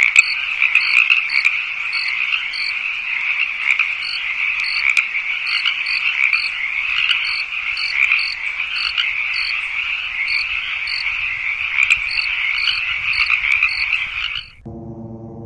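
Night chorus of frogs: a dense, continuous shrill trilling with short high chirps repeating on top. It cuts off abruptly near the end, replaced by a quieter low droning hum with many overtones.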